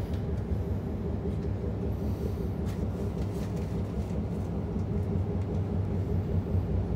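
Inside a moving passenger train: a steady low rumble of wheels and running gear on the track, with a steady hum and a few faint clicks.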